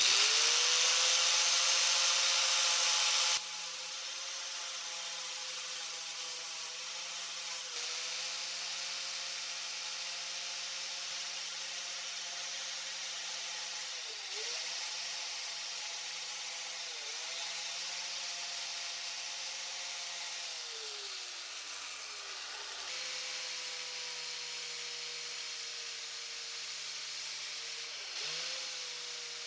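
Angle grinder with a 120-grit sanding disc running and sanding down forging marks on a steel wrench. The grinding is loudest for the first three seconds or so. After that comes a steady motor whine whose pitch sags briefly a few times as the disc is pressed on, and falls away once before picking up again.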